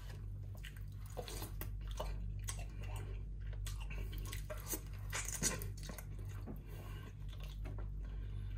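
Close-up wet eating sounds: chewing, sucking and lip smacks on saucy chicken and its cartilage, in scattered short clicks. A steady low hum sits underneath.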